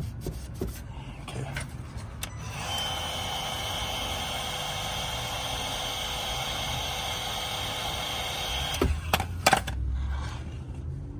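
Heat gun blowing steadily for about six seconds, a hiss with a fixed whine that switches on and off abruptly, heating the surface so adhesive will stick. Then a few sharp knocks.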